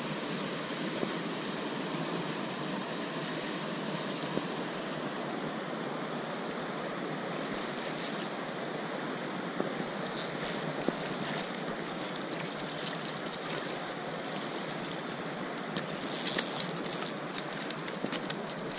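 Steady rush of river water running over a rocky riffle, with scattered sharp clicks and rattles about halfway through and a cluster of them near the end.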